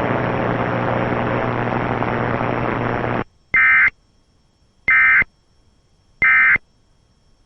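Steady hiss with a low hum that cuts off suddenly about three seconds in, followed by three short warbling digital data bursts about a second and a half apart: the Emergency Alert System end-of-message code that closes a broadcast alert.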